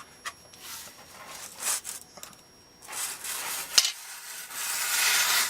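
Box cutter blade drawn through cardboard in three scraping cuts, the last one the longest and loudest, with a sharp click just before it.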